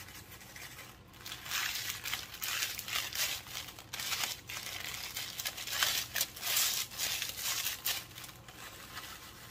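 Plastic sleeve of Ritz crackers crinkling and crunching as the crackers are squeezed and crushed by hand inside it, in irregular rustles from about a second in until near the end.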